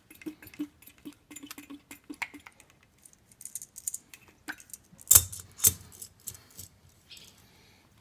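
Pump oil can clicking and squeaking as oil is squirted onto a tapered roller bearing, with small metallic rattles of the bearing being turned in the hand. A little after five seconds in come two sharper metal clunks as the bearing is dropped into the steel wheel hub.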